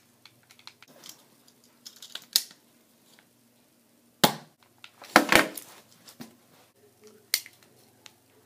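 Several sharp plastic clacks and snaps from toy foam-dart blasters being handled, primed and fired, a handful spread out with quiet between, the loudest cluster about five seconds in.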